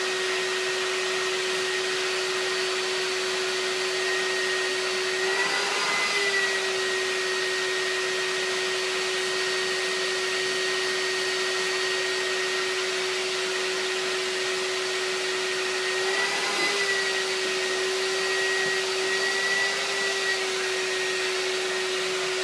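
Vacuum cleaner running steadily as it is used to groom a cat's fur. Its tone wavers briefly twice, about six seconds in and again about sixteen seconds in.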